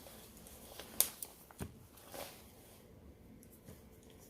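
Vinyl electrical tape being handled and wrapped around a bundle of wires: faint crackles and a few small clicks, the sharpest about a second in.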